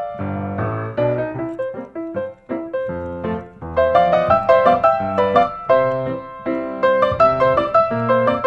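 Background piano music, a light melody that gets fuller and louder about halfway through.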